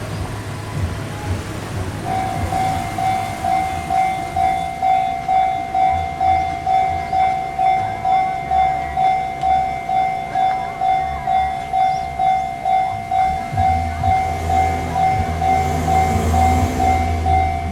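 Japanese level-crossing alarm bell starts about two seconds in and rings a steady pitched tone about twice a second. A train's low rumble builds near the end.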